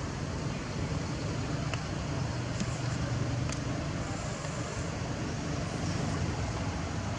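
Steady low rumbling background noise, with a few faint short high clicks.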